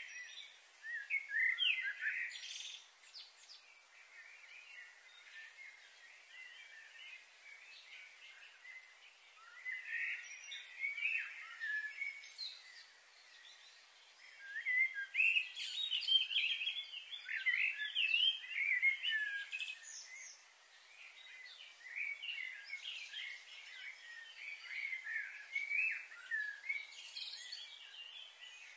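Small birds chirping and calling in quick, overlapping bursts, busiest in the second half.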